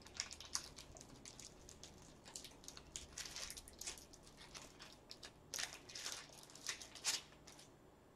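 Faint, irregular crinkling and small ticks from gloved hands handling things, bunched about three seconds in and again from about five and a half to seven seconds.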